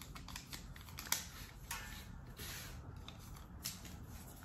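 Faint rustling and light clicking of small paper slips being handled and unfolded by hand, with one sharper tick about a second in.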